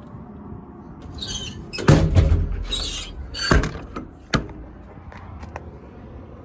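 Metal compartment doors of a truck's service body being worked: a sliding rush and latch clicks, a loud bang about two seconds in, a sharp bang around three and a half seconds, and a smaller one just after four seconds.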